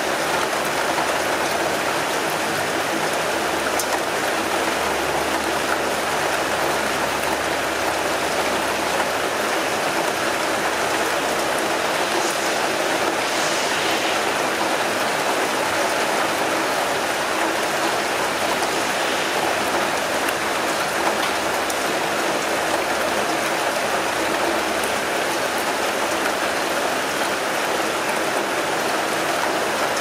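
Steady rain falling in an even hiss. A low rumble of distant traffic comes and goes beneath it, from about 3 to 12 seconds in and again around 20 seconds in.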